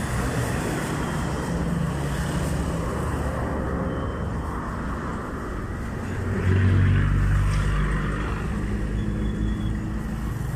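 Road traffic going by, a steady rumble of engines and tyres. A motor vehicle's engine gets louder about six and a half seconds in, then fades as it passes.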